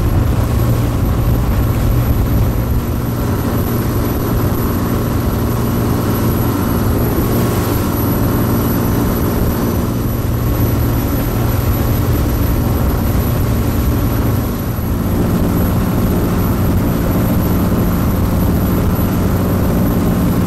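Taxi boat's engine running steadily under way, a loud low drone. Its note shifts slightly about fifteen seconds in.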